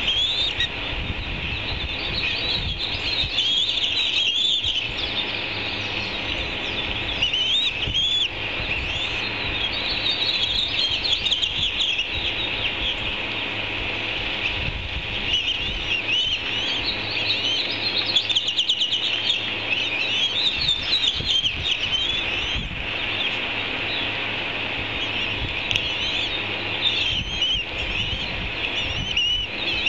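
Ospreys on the nest calling: a near-continuous stream of short, high-pitched chirps, many in quick runs, over a low rumble.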